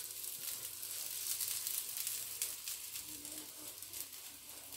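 Melted butter sizzling and crackling on a hot flat griddle pan as it is brushed over a cooking flatbread.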